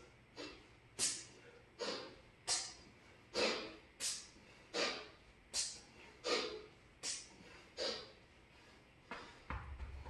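Sharp, forceful breaths hissed through the teeth in a steady rhythm, about one every three-quarters of a second, paced to two-handed kettlebell swings. Near the end a dull low thud as the kettlebell is set down on the floor mat.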